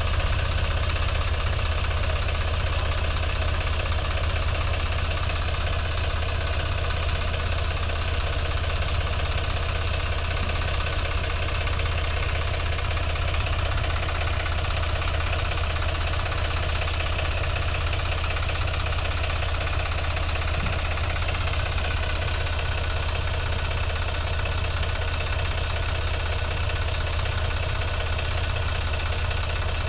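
Sonalika tractor's diesel engine running at a steady speed, a low, even drone that does not change.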